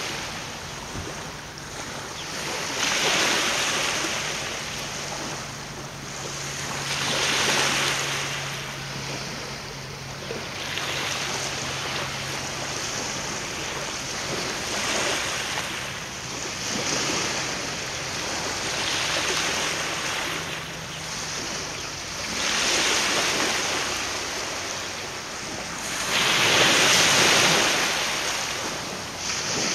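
Waves washing ashore in slow surges about every four seconds, mixed with wind.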